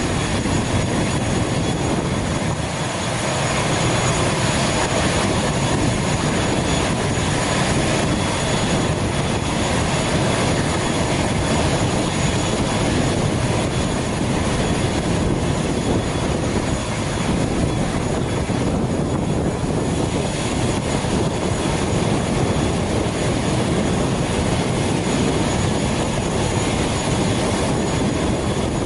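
Aircraft turbine engine running steadily on a parked ATR 72 turboprop. It makes a constant loud rush with a thin high whine over it.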